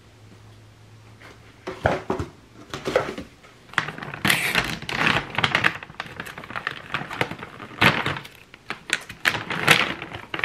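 Large plastic cat-food bag crinkling and crackling as hands grip it and work its top open. It starts about two seconds in with a few knocks, then goes on as a dense, irregular rustle.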